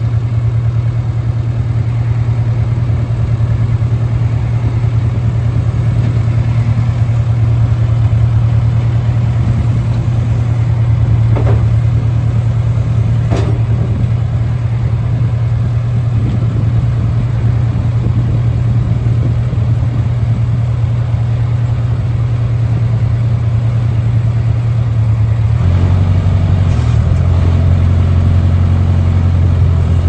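Case 580K backhoe loader's four-cylinder diesel engine running steadily while the front loader is worked, with two faint knocks about halfway through. About 26 s in the engine note drops lower.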